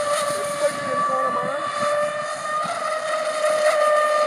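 Radio-controlled speedboat's motor running flat out, a steady high-pitched whine that rises slightly in pitch about two and a half seconds in.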